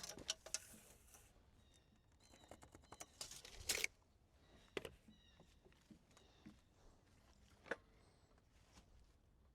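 Scattered light knocks and clicks of boards and tools being handled, the loudest a short clatter about three and a half seconds in, with faint high chirps in between.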